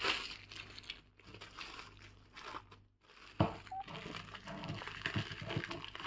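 Plastic wrapping rustling and crinkling as hands handle a film-wrapped magnetic knife strip and then pick open a small clear plastic packet, with a short knock about halfway through.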